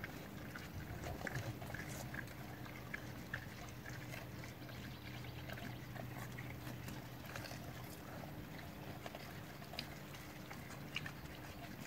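Javelinas (collared peccaries) crunching and chewing bell peppers: a faint, irregular scatter of small crunches, clicks and smacks, over a steady low hum.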